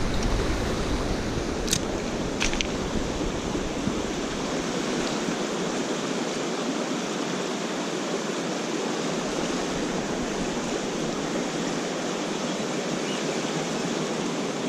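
Mountain stream rushing and babbling over rocks, a steady wash of water noise. Two short clicks come about two seconds in.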